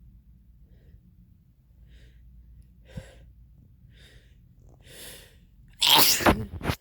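A person sneezing, set off by drinking red wine. A few short, sharp catching breaths about a second apart lead up to one loud sneeze near the end, which cuts off abruptly.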